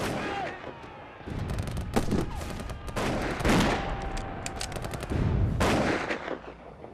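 Battlefield gunfire: a rapid crackle of rifle and machine-gun shots, with several heavier blasts about two, three and a half and nearly six seconds in.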